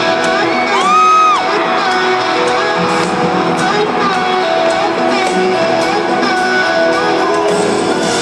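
Live country band with electric guitars and a singer, heard from within a concert crowd. About a second in, a fan close to the microphone gives one loud, high whoop over the music.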